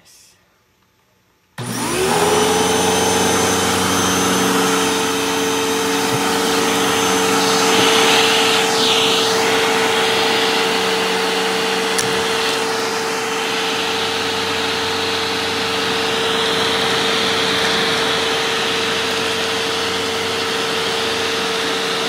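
Hoover vacuum cleaner switched on about a second and a half in, its motor spinning up to a steady high whine over a constant rush of air. The bare hose end then works across a tabletop sucking up small pieces of cut-up eraser and puzzle, with a brief change in the airflow sound around the middle and a single click a little later.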